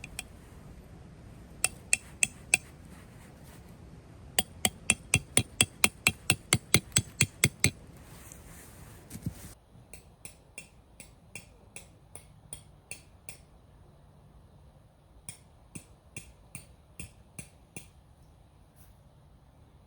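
Sharp metallic clinks struck in quick, even runs: a short run of four, then about a dozen at roughly four a second, then fainter runs of strikes.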